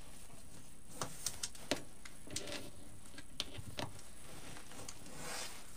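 Scattered light clicks and, near the end, a short soft rustle: a pipe cleaner being worked through deco mesh on a wreath frame.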